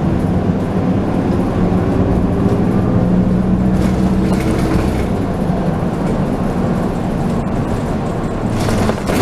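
City bus engine running under way, heard from inside the passenger cabin, its pitch rising for a couple of seconds as the bus accelerates and then settling. A short hiss near the end.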